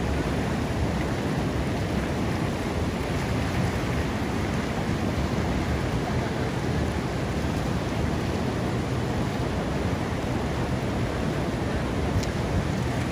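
Ocean surf breaking and washing steadily over a rocky shore, with some wind on the microphone.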